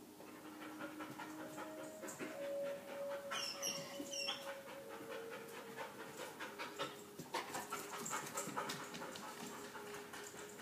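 Dog panting in quick, steadily repeated breaths, the anxious panting of a dog with separation anxiety left alone.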